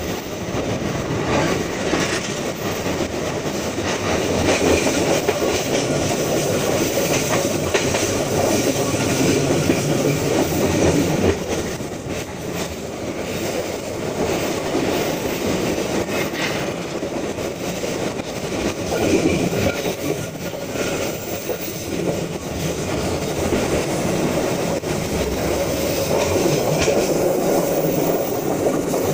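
Argo Parahyangan passenger train running at speed, heard from an open door of a carriage: a steady rumble of the wheels on the rails, with scattered sharp clacks.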